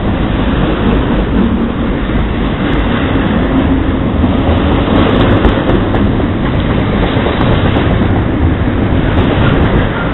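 Double-stack container freight train passing at close range: a loud, steady noise of steel wheels running on the rails under the well cars, with no letup.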